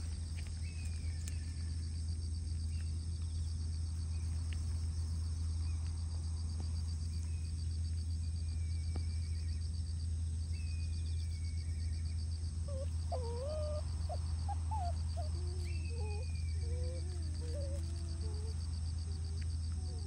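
Raccoon dog kits whining: a run of wavering, rising and falling cries over the second half. Underneath are a steady low hum and the pulsing buzz of insects.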